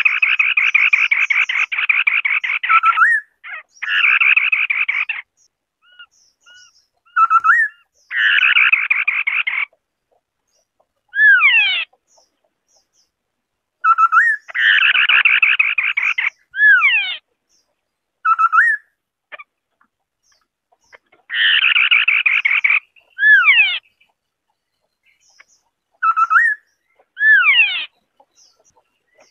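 White-browed scimitar-babbler singing: fast rattling chatters alternate with short whistled notes and steep down-slurred whistles, in a phrase that repeats several times with short silences between.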